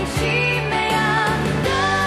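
Music: a song with a wavering sung melody over held bass notes.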